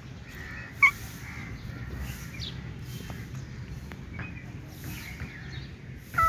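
Cats meowing in a few short calls, the loudest a sharp one about a second in and another near the end, over a steady low rumble.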